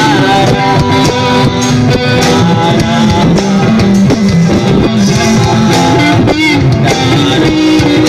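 Live rock band playing on stage: electric guitars and a drum kit, loud and continuous, in a low-quality recording.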